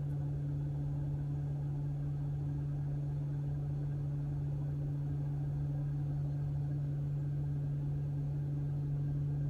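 Cooling fan outside the car running hard during high-power supercharging at about 111 kW, heard from inside the Tesla Model S cabin as a steady, even hum with a deep drone.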